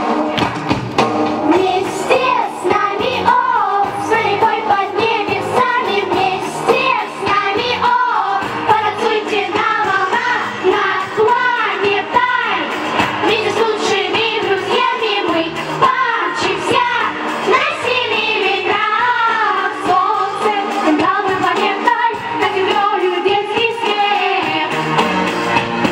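Young girls singing a pop song together into microphones over an amplified backing track with a beat.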